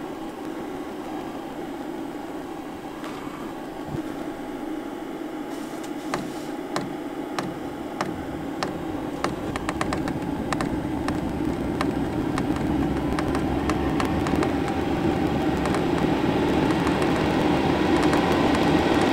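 Chinese 5 kW diesel air parking heater starting back up: its blower fan hums and grows steadily louder, with sharp ticks from the fuel pump coming in a few seconds in.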